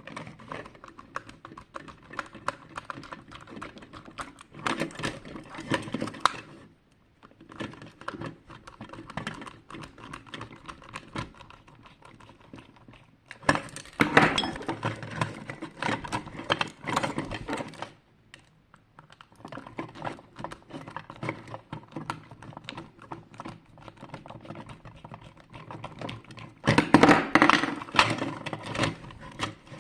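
Small plastic parts of a projection alarm clock clicking, tapping and rattling as it is handled and taken apart by hand, with three louder spells of clatter, the last the loudest.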